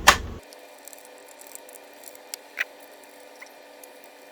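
One sharp click at the start, then a few faint, scattered small clicks and taps from handling the parts of a half-disassembled laptop.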